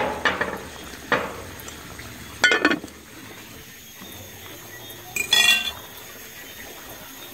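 A few separate metallic clinks and clanks of cooking pots and dishes: one about a second in, another around two and a half seconds, and a louder ringing clank a little past five seconds.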